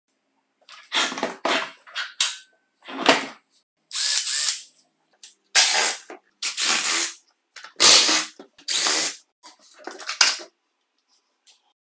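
Hand-held electric screwdriver running in about nine short bursts of a second or less, backing screws out of the pencil sharpener's case.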